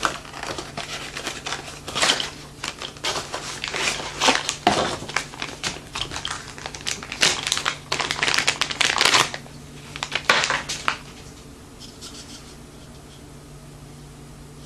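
Packaging being crinkled, crushed and torn as a box that would not open is forced apart, in dense irregular rustling bursts. It stops about eleven seconds in, leaving only a faint steady hum.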